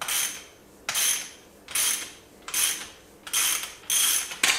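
Ratchet wrench clicking through repeated back-strokes as it turns a special tool on the dirt bike's suspension, a burst of ratcheting a little more than once a second.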